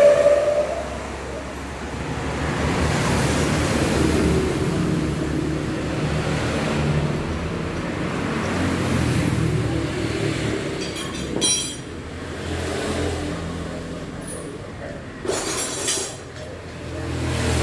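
Road traffic rumbling by, with passing motor vehicles swelling and fading. It is broken by a few sharp metal clinks, one about eleven seconds in and another near the end.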